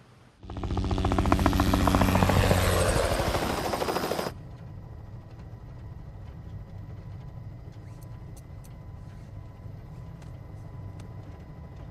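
Helicopter rotor chopping loudly with fast, even blade beats, then cutting off sharply about four seconds in to the quieter, steady drone heard inside the helicopter's cabin.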